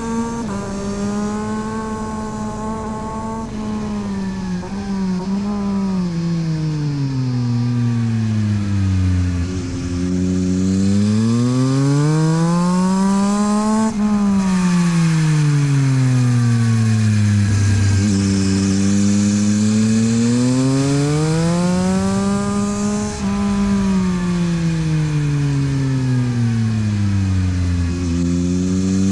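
Yamaha MT-09 SP's three-cylinder engine through a LeoVince aftermarket exhaust, heard from on the bike at track speed. The revs climb and fall in long sweeps as it accelerates out of corners and slows into the next, three times, with brief breaks in the climb at gear changes.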